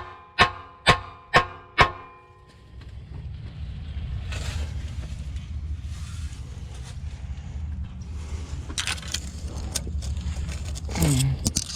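A heavy hammer striking a steel exhaust pipe about twice a second, each blow ringing, for the first couple of seconds, driving the pipe back into place. After that, a steady low rumble with a few short scrapes and clatters.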